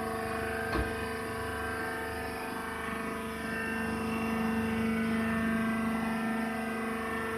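Husk baler machine running with a steady mechanical hum that holds several fixed pitches, and a single sharp knock about a second in.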